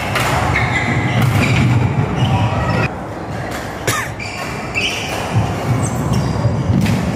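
Badminton being played on an indoor court: sharp racket hits and thuds scattered through, with short high squeaks of shoes on the court floor, over a steady low hum.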